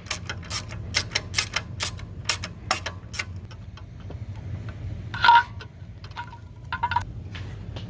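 Ratchet wrench clicking in a quick, irregular run for about three seconds, then a louder metallic clink with a short ring about five seconds in, followed by a few lighter metal clinks.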